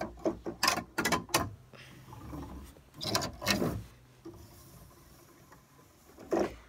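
A series of sharp clicks and knocks with some rustling, in a quick cluster at the start, another about three seconds in, and one more near the end.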